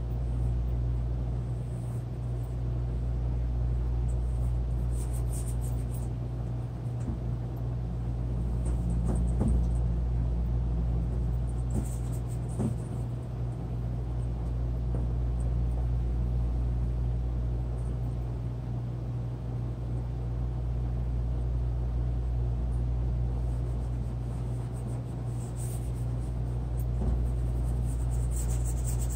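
A steady low hum runs throughout. Faint short scratching strokes come now and then, typical of a drawing tool moving over paper.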